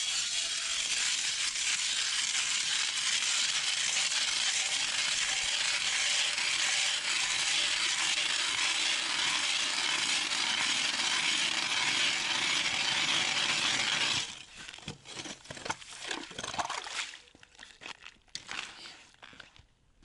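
Ice auger boring a hole through reservoir ice, a steady grinding scrape of the blades cutting ice. About 14 seconds in the drilling stops suddenly, followed by scattered knocks and clinks of the auger and ice chips being handled.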